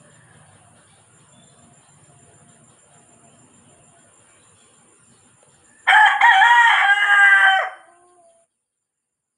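Rooster crowing once: a loud call of about two seconds beginning about six seconds in, its pitch stepping up and then falling away at the end.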